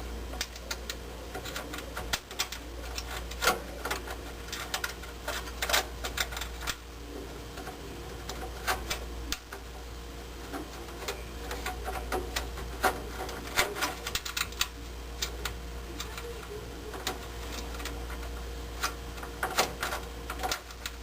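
Irregular clicks and taps of a screw and screwdriver against a furnace's sheet-metal bracket as a pressure-switch mounting screw is worked in by hand, over a steady low hum.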